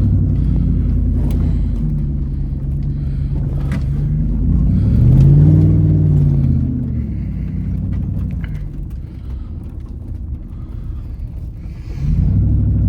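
Third-generation Dodge Ram's Hemi V8 running off-road, heard from inside the cab. It revs up and eases back off about halfway through, runs lower and quieter for a few seconds, then picks up again near the end.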